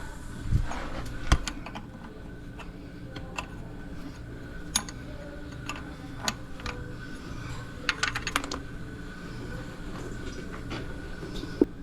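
Scattered light clicks and taps over a steady low hum, with a quick cluster of clicks about eight seconds in.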